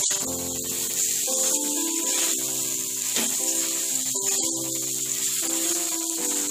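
Potato, radish and flat beans sizzling in hot oil in a kadai as they are stirred with a spatula, a steady hiss. Background music of slow, held notes plays alongside.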